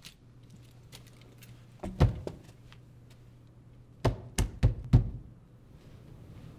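A wooden door thudding against its latch as it is tried and will not open: one heavy thump, then four quick thumps about a third of a second apart. The door is locked.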